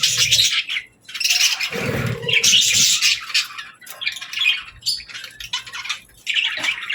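Budgerigars chattering and squawking in repeated bursts of high chirps, with short pauses between them.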